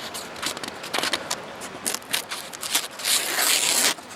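A sharpened knife blade slicing paper: scattered crackling ticks as the edge bites, then a longer hissing slice about three seconds in. It is a paper-cutting test that shows the edge is still sharp after shaving.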